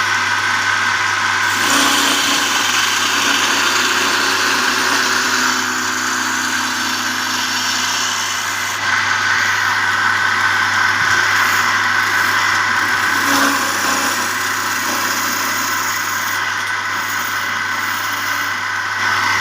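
An electric woodworking machine running steadily, its motor giving a constant hum and whine, with the noise of wood being worked swelling and easing as the work goes on.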